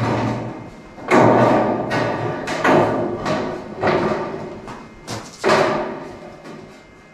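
Galvanised steel trough being knocked and shifted into a welded steel frame by hand: a series of about five metal thumps and clangs, each ringing on briefly after the hit.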